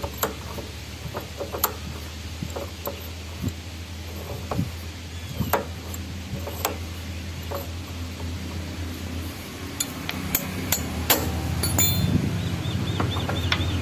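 Irregular metallic clinks and knocks of a steel tommy bar working a threaded flywheel puller on a TVS XL100 moped's magneto rotor, pulling the rust-jammed ACG flywheel off the crankshaft. The knocks come more often near the end, over a steady low hum.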